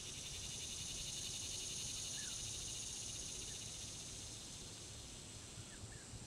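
Steady, high-pitched chorus of summer insects with a fine, rapid pulse, and a few faint short chirps scattered through it.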